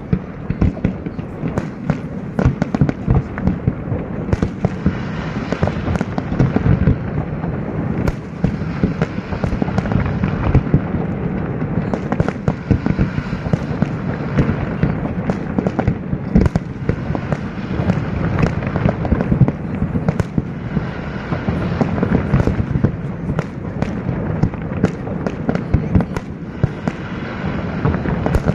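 Aerial fireworks display: a dense, continuous barrage of shell bursts, with sharp bangs and booms following one another several times a second over a steady crackle.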